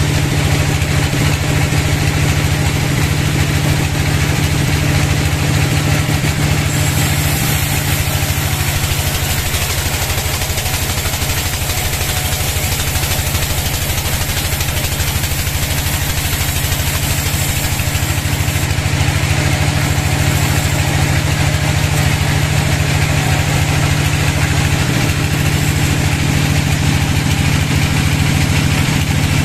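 Band sawmill running steadily with a low, even hum. From about a quarter of the way in to about two-thirds through, a high hiss rides on top as the band blade cuts through the log.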